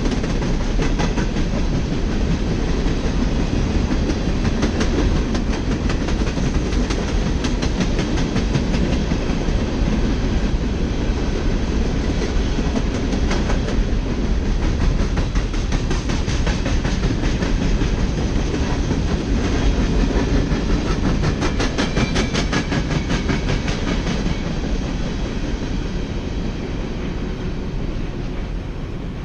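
Empty steel coal hopper cars rolling past with a steady rumble, their wheels clicking rhythmically over the rail joints. The sound fades somewhat near the end as the last car moves off.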